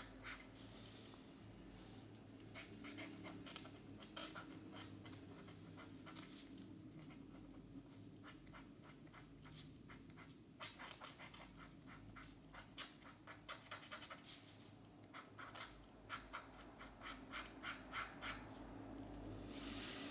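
Felt-tip markers scratching across colouring-book paper in quick back-and-forth strokes. The strokes come in short bursts separated by pauses.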